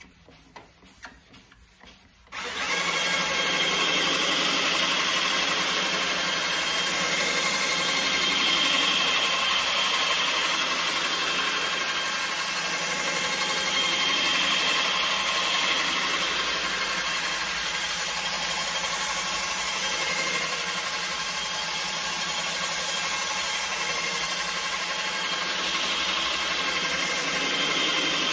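Cordless drill with a right-angle attachment spinning a foam polishing pad against a plastic headlight lens, starting suddenly about two seconds in and then running steadily. A few faint clicks and taps come just before it starts.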